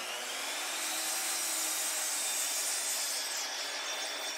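Ryobi sliding compound miter saw with its motor spinning up in a rising whine, then the blade cutting through an old hemlock 4x4 post with a steady, loud, high-pitched sawing whine.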